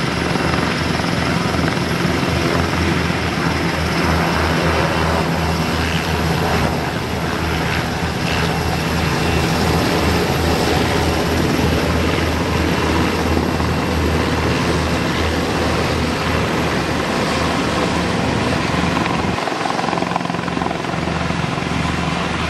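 An NH90 helicopter lifting off and climbing overhead. Its rotor blades make a steady chopping thud over a constant high turbine whine.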